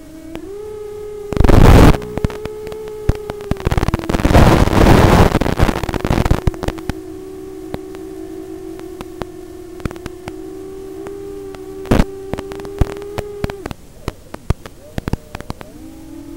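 Racing quadcopter motors whining as a steady tone that shifts a little in pitch with the throttle, picked up on board. Loud bursts of crackling noise come about two seconds in and again from about four to six and a half seconds, with scattered clicks after them. The whine cuts out briefly near the end and then returns at a lower pitch.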